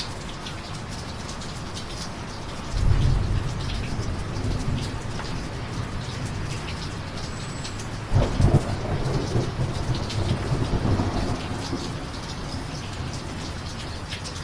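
Steady rain falling, with two rolls of thunder: a sudden low rumble about three seconds in that fades away over several seconds, and another about eight seconds in.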